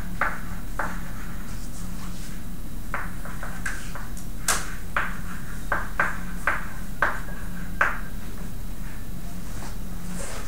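Chalk writing on a blackboard: a string of about a dozen short, sharp taps and brief scratches as strokes and labels are put down, over a steady low hum.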